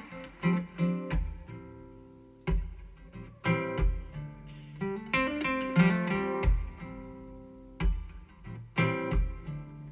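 Recorded song's intro played back on Yamaha NS-1000 speakers driven by an EL84 push-pull tube amplifier: picked and strummed acoustic-guitar chords over a deep drum thump about every second and a half.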